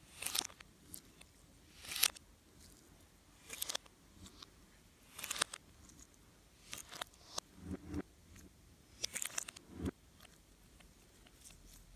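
Slime being squished and stretched by hand, giving short crackly squelching pops about every one to two seconds, a couple of them with a dull thump.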